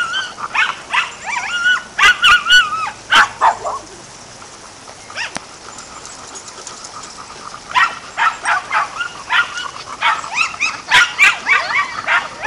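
Dogs barking and yipping in quick, sharp, high-pitched bursts, with a quieter lull of a few seconds in the middle.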